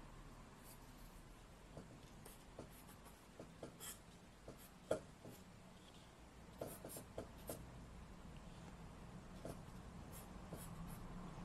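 Charcoal being drawn across paper in short, faint scratchy strokes, the sharpest one about five seconds in.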